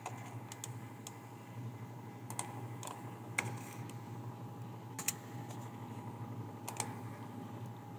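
Computer keyboard keystrokes and mouse clicks: about ten scattered sharp taps at irregular intervals, over a steady low hum.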